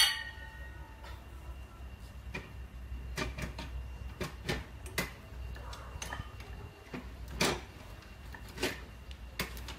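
A sharp metallic clank that rings briefly at the start, then scattered light clicks and knocks of metal parts as the steel handle and fittings of a hand-push seed planter are worked during assembly.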